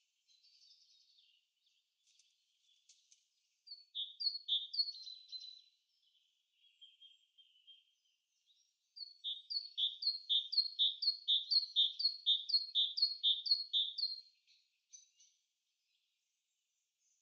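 A songbird singing, high and clear. About four seconds in comes a short phrase of a few down-slurred notes. From about nine to fourteen seconds comes a longer run of about a dozen quick, evenly repeated down-slurred notes, roughly two a second.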